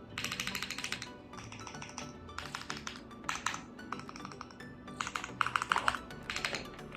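Typing on a Cidoo V65 V2 mechanical keyboard: rapid keystroke clicks in uneven bursts, loudest a little before the end, over background music.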